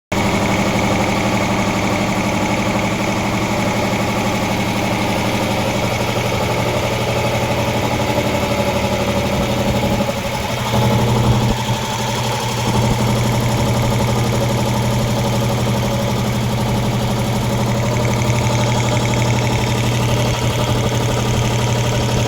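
10 HP air compressor, driven by its 10 HP motor, running steadily with a loud mechanical hum. About halfway through the sound dips briefly, then the low hum comes back stronger.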